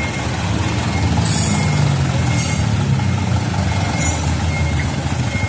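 Mitsubishi Canter truck's diesel engine running as the truck drives off, its note swelling slightly about a second in and then holding steady.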